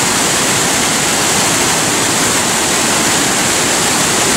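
Waterfall and whitewater rapids on a river, rushing loudly and steadily, water crashing over a rock ledge below a dam.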